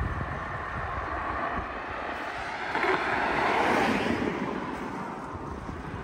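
A passing motor vehicle whose noise swells to a peak about halfway through and then fades, heard over wind on the microphone.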